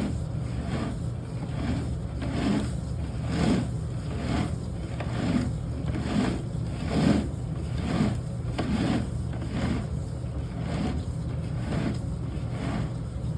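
Sewer inspection camera's push cable being fed down a drain line, with a short scraping pulse about once a second over a steady low hum.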